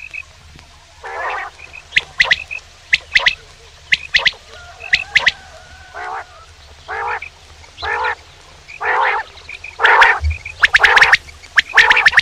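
A male quail calling over and over, about once a second. Short, harsh, grating notes alternate with sharp, quick high whistled notes.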